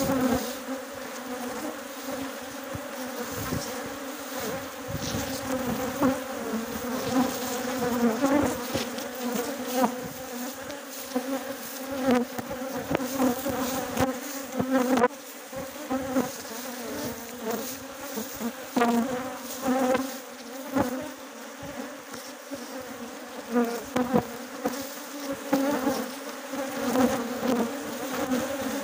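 Dense buzzing of a large mass of honeybees flying around their hives, a steady hum that swells and fades as individual bees fly close past the microphone.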